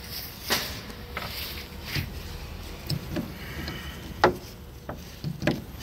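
Scattered metallic clicks and knocks of hand tools and bolts working on a bus engine's oil cooler, a handful of separate strikes with the sharpest about four seconds in.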